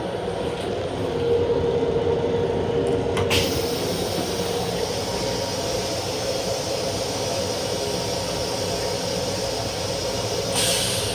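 Steady hum and rumble of a Long Island Rail Road M7 electric railcar heard from inside the car, with a short click about three seconds in.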